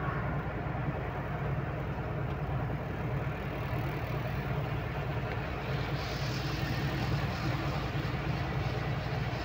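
Truck engine running steadily under way, with road noise heard from inside the cab. A higher hiss joins about six seconds in.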